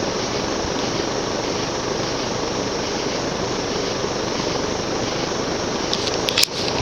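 Cast-iron 36-inch View Fan ceiling fan running on high, a steady rush of air from the blades. A few sharp clicks come near the end.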